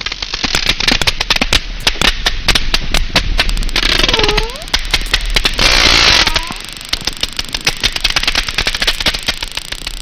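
Sperm whale clicks recorded underwater: a rapid, irregular train of sharp clicks. Two brief hissing surges near the middle carry short swooping tones.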